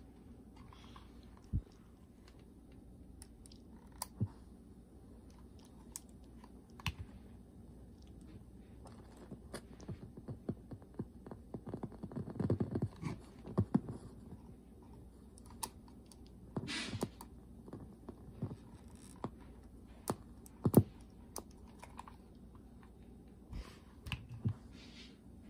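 Scattered sharp clicks and handling noises from a Panasonic RX-SA73 cassette Walkman as its plastic buttons and switches are pressed. There is rubbing and rustling around the middle, and the loudest click comes about four-fifths of the way through.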